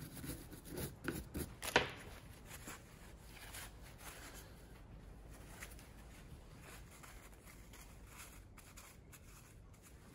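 A small hand wire brush scrubbing a metal PCV valve part clean: a few scratchy strokes and sharp knocks in the first two seconds, then fainter, steady scrubbing and rubbing.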